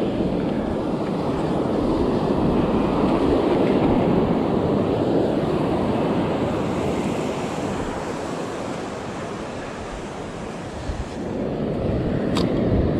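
Ocean surf washing onto the beach with wind buffeting the microphone, swelling a few seconds in, easing off and building again near the end, where a short sharp click is heard.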